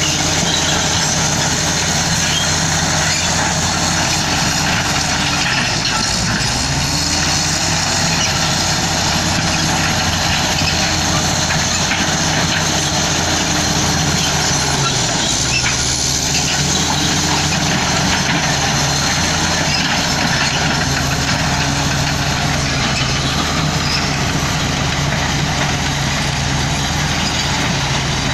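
Heavy diesel earthmoving machinery running continuously under work load. The engine note dips and shifts pitch about six seconds in and again around fifteen seconds in.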